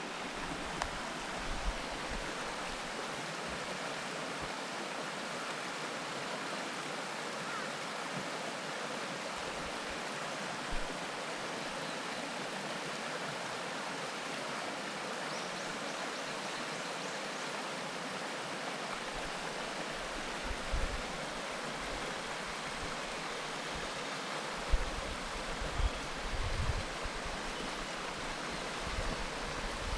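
Steady rush of a river flowing far below, an even white-noise wash. A few short low thumps come in the last several seconds.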